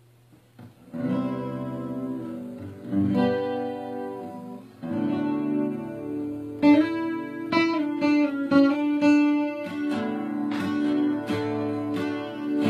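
Guitar intro: a few strummed chords, each left to ring, then quicker picked notes from about halfway through.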